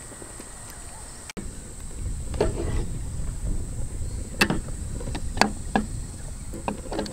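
Steady high insect chirring in the open air. About a second and a half in, the sound drops out for an instant; after that a low rumble comes in, with about seven sharp knocks and clicks, the loudest two a little past the middle.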